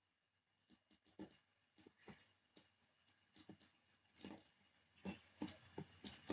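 Near silence with faint, irregular clicks and taps from handwriting on a computer with an on-screen pen tool. The clicks come thicker and louder in the last second and a half.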